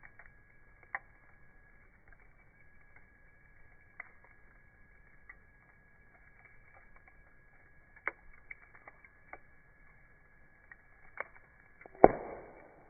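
Wood fire crackling: scattered sharp pops and ticks, with one much louder pop near the end.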